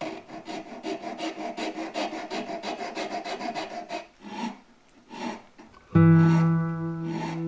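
Hand file worked quickly back and forth on the wood of a rifle stock, about five strokes a second for four seconds, then two slower single strokes. Acoustic guitar music comes in near the end.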